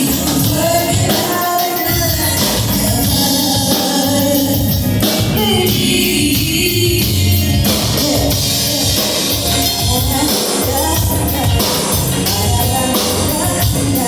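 Live band music with a singer over a steady drum beat and bass, played loud and continuously.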